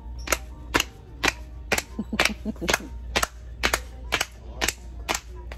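A child clapping her hands in a steady rhythm, about a dozen sharp claps at roughly two per second.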